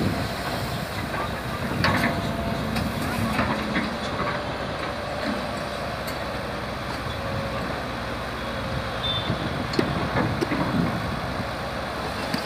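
An engine running steadily, with a few short knocks.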